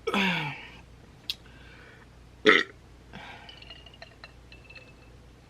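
A woman's long belch at the start, falling in pitch, brought up by fizzy soda, followed by a sharp click and a short loud second burst about two and a half seconds in, then a few faint clinks.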